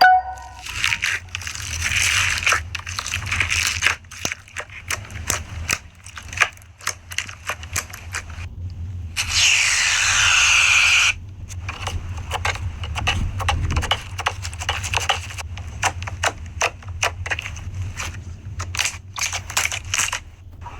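Slime being squished and poked by hand, giving irregular crackling, popping clicks, with a loud hissing rush lasting about two seconds near the middle.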